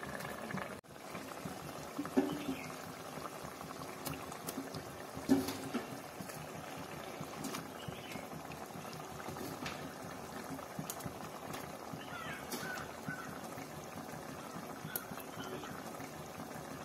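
Sardine curry simmering in a pot, a steady low bubbling, with two sharp knocks about two and five seconds in.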